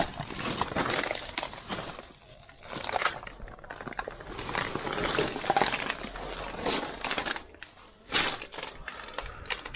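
Household rubbish crunching, crackling and rustling as someone clambers over heaps of plastic bottles, plastic bags and cardboard: an irregular run of crackles and knocks, with a sharper crack about eight seconds in.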